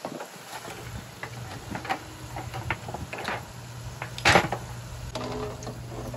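French fries sizzling and crackling in hot vegetable oil in a cast iron Dutch oven. A metal slotted spatula clicks and scrapes against the pot as the fries are lifted out, with one sharp clank about four seconds in.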